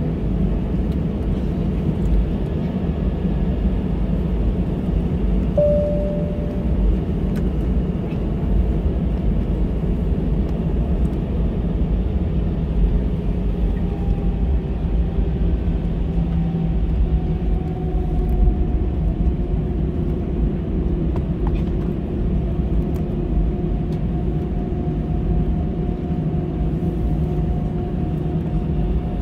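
Cabin noise of an Airbus airliner taxiing: a steady low rumble from the jet engines at idle and the rolling gear, with a faint whine that rises slowly in pitch in the second half. A short single tone sounds briefly about six seconds in.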